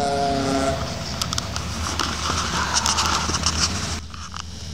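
Rally car engine running hard on the stage, its note wavering with the throttle and fading in the first second. It gives way to a noisy rush with scattered crackles, then cuts to a quieter steady hiss about four seconds in.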